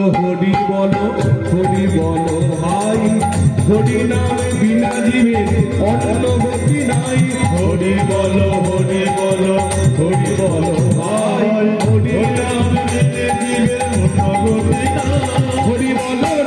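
Live Bengali devotional kirtan music: a man sings into a microphone over a khol drum, rattling percussion and sustained accompanying notes.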